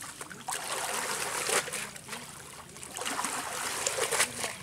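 Cast net being dunked and lifted in shallow river water, with splashing and water dribbling off the mesh in two spells.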